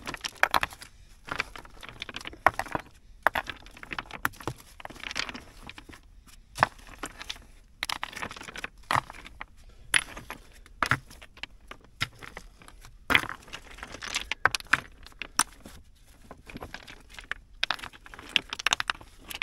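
Small loose stones clinking and clattering against each other and the rock as a gloved hand digs them out of a rock crevice, in irregular sharp knocks with scraping of soil between.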